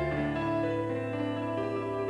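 Instrumental background music: slow, with long held notes.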